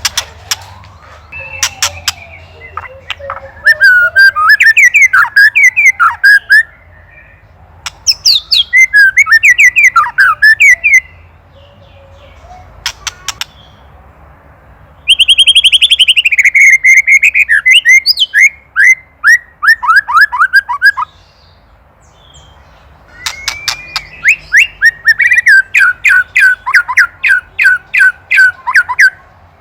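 White-rumped shama (murai batu) calling in four loud bursts of rapid repeated, down-slurred notes, mixed with sharp clicking rattles (ketrekan): the shama's agitated call at a predator.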